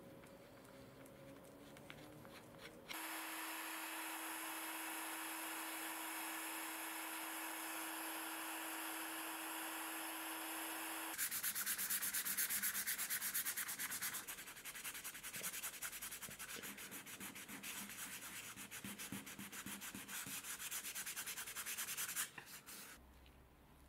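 Leather being hand-sanded over dried filler patches: rapid back-and-forth rubbing strokes through the second half, loudest for the first few seconds. Before that, a steady hiss with a low hum runs for about eight seconds.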